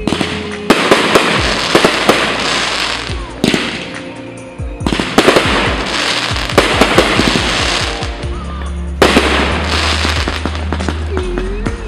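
A fireworks display: volleys of sharp bangs and dense crackling from bursting shells, easing off briefly near the middle and picking up again, over music with steady low notes.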